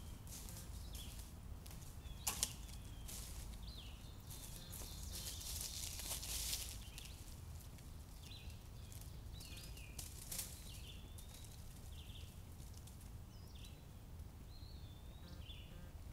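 Footsteps and a dead branch crunching and rustling through dry leaf litter, with scattered snaps, a sharp one about two seconds in and a longer rustle around the middle. A songbird calls in short, repeated chirps.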